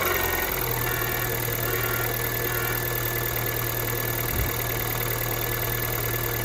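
Kia Ceed second-generation 1.6-litre engine idling steadily within a minute of a cold start, the condition in which the owner reports a knock. The note settles to an even hum about half a second in.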